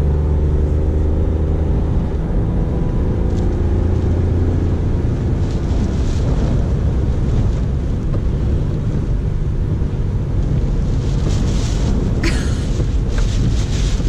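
Car cabin noise while driving in hurricane-force wind: a steady low rumble of engine, tyres and wind buffeting the car. Rain and spray spatter on the windshield, more thickly in the last few seconds.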